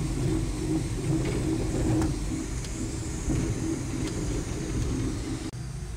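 Bus driving on the highway: a steady low engine and road rumble with a few faint rattles. The sound changes abruptly to a quieter rumble about five and a half seconds in.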